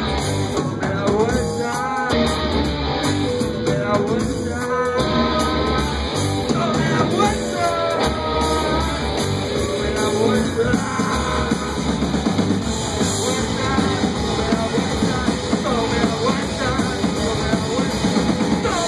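Rock band playing live: drum kit and electric guitar, with a man singing over them, strongest in the first few seconds.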